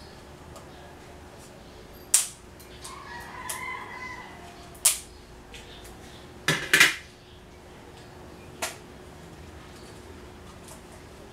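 A rooster crowing once, faintly: one call of about a second and a half that falls away at its end. Several sharp clinks and knocks sound around it, the loudest a quick double clatter a little past the middle.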